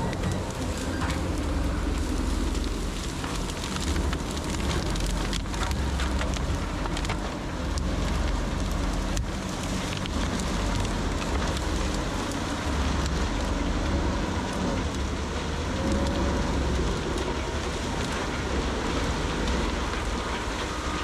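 Heavy diesel machinery running steadily with a deep rumble, overlaid by dense, irregular crackling and snapping.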